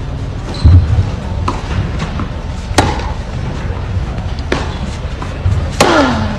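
Tennis racket striking the ball a few times, with sharp cracks, the strongest about three seconds in and again near the end, when a serve is hit and followed by a falling vocal grunt. A few dull low thumps come about a second in.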